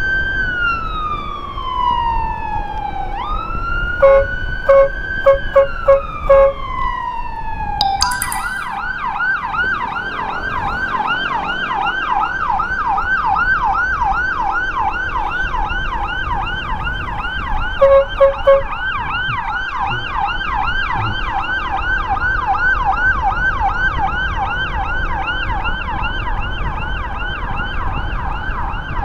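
Electronic emergency siren, loud and close: a slow wail sweeping down, jumping back up and sweeping down again, then from about eight seconds in a fast yelp of about three cycles a second. A run of five short horn beeps comes about four seconds in, and two more near the middle.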